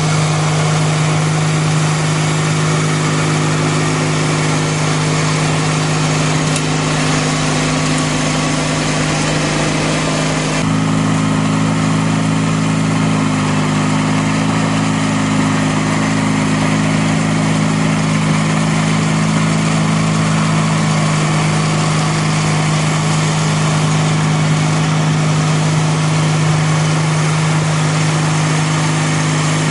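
Sears/Roper GT18 garden tractor's 18 hp Briggs & Stratton horizontal twin engine running steadily under load, driving a 42-inch shaft-driven snowblower that is throwing snow. The engine's tone changes abruptly about ten seconds in.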